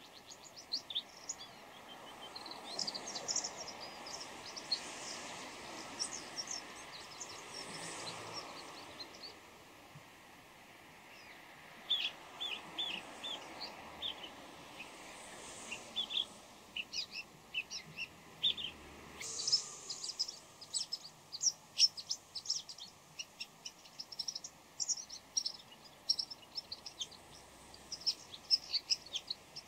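Bull-headed shrike giving a quick, varied run of short chirping calls and song phrases, with a brief pause near the middle and the calls thickest in the second half. A soft rushing background noise swells and fades in the first several seconds.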